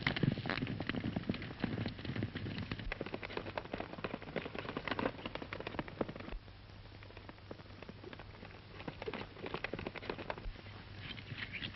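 Hoofbeats of several horses galloping on sandy ground, a fast irregular clatter that thins out and drops in level a little past halfway, then picks up again near the end. A steady low hum runs underneath, as on an old film soundtrack.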